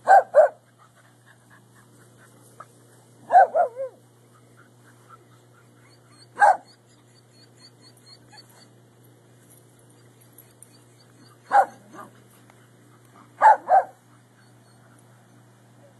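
Dogs at play barking in short bursts of one to three barks a few seconds apart: a pair at the start, three about three seconds in, single barks near the middle and about eleven seconds in, and a final pair near the end.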